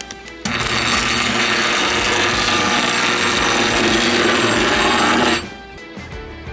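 A loud, steady machine-like rushing noise, like a small power tool running, for about five seconds over background music, starting and stopping abruptly.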